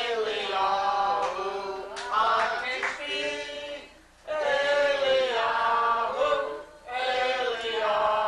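A group of voices singing a Passover seder song together, the singing breaking off briefly twice between phrases.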